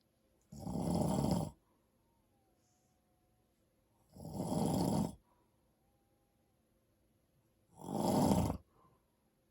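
A man snoring: three snores, each about a second long, one every three and a half seconds or so.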